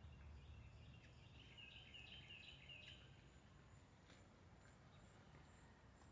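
Faint birdsong: one quick warbling phrase from about one to three seconds in, over a low steady background rumble.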